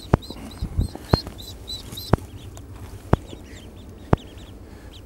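Ducklings peeping: a quick run of short, high chirps over the first two seconds, then fainter peeps. A sharp click repeats about once a second and is the loudest sound.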